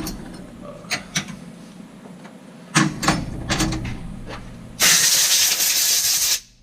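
A few light clicks and knocks, then a loud burst of compressed air hissing for about a second and a half and cutting off sharply, as from a shop air blow gun.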